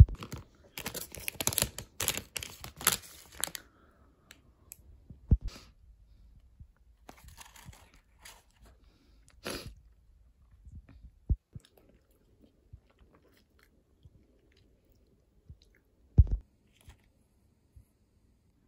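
Food and packaging handling sounds: a burst of crackling and rustling in the first few seconds, then scattered clicks and rustles with a few dull thumps.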